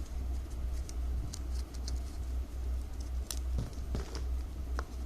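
Faint scattered ticks and crinkles of milk-powder-bag strips being handled and woven by hand, over a steady low hum.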